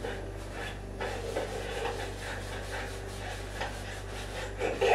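Paint brush rubbing and scrubbing on a stretched canvas as wet oil paint is blended, over a steady low electrical hum.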